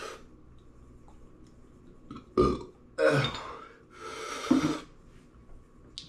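A man burping and blowing out hard breaths: a sudden loud burp about two and a half seconds in, then two longer breathy bursts.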